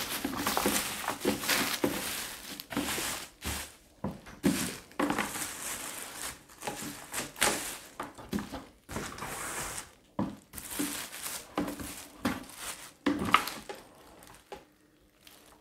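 Plastic packaging wrap crinkling and rustling in irregular bursts as a plastic spin-mop bucket is handled and unwrapped, with occasional light knocks of hard plastic.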